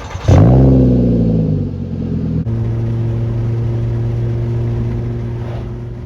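Car engine starting: it catches with a brief rev that falls away, then runs at a steady idle.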